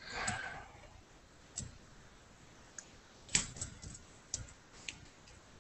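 Faint, irregular clicks of a computer mouse and keyboard, about seven of them spread over a few seconds, the loudest a little past the middle. A brief soft breathy noise comes at the start.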